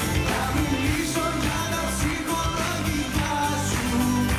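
Pop song with singing over a steady beat.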